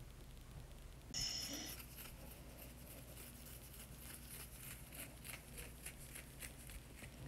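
Faint rustling of a hand scratching and rubbing a pit bull's head and fur, in repeated strokes. A brief high-pitched sound comes about a second in.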